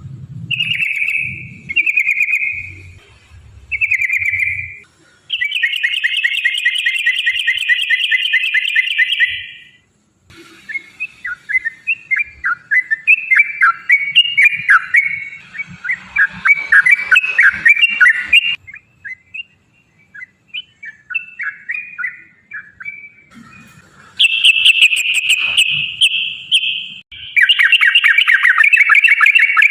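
Yellow-vented bulbul (trucukan) singing in long, rapid 'ropel' bursts. A few short bubbling phrases give way to a dense, fast trill of about four seconds, then a long stretch of quick varied chattering notes, and more rapid trilled phrases near the end.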